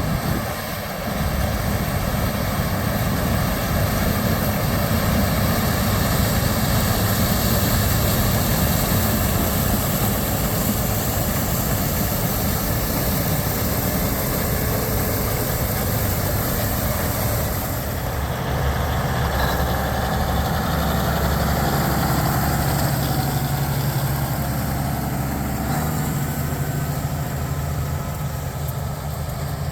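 Heavy diesel farm machinery running steadily in the field, with a deeper engine hum coming up in the last third.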